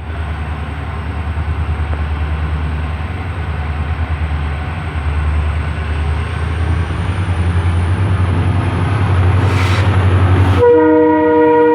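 WDP4B diesel-electric locomotive's engine running with a deep pulsing rumble that grows louder as the train pulls away. About a second before the end, its multi-tone air horn comes on and is held.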